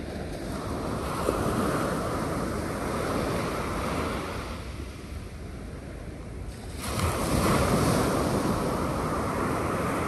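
North Sea waves breaking on the shore: one wave swells up about half a second in and dies away, and a second breaks suddenly about seven seconds in.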